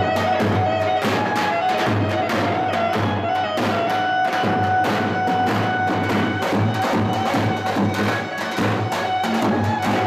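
Davul bass drums beaten with a heavy mallet and a thin stick, playing a quick dance rhythm under a melody instrument holding long, steady notes: traditional Turkish folk dance music.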